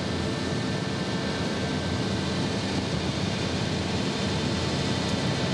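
Steady industrial background noise of a plating shop: an even hiss with faint steady hum tones, unchanging throughout.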